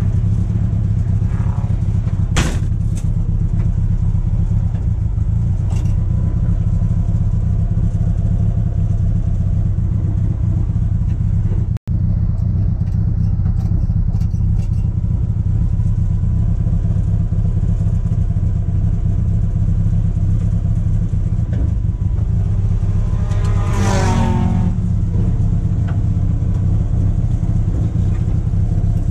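VW Golf Mk1 four-cylinder race car engine heard from inside the cabin, running loud and steady at near-constant revs. A brief sudden cutout in the sound comes near the middle, and a short falling sweep comes near the end.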